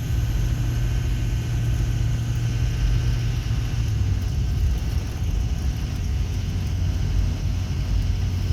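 Steady low drone of a car's engine and tyres on the road, heard from inside the cabin while driving; the drone steps slightly lower in pitch about three and a half seconds in.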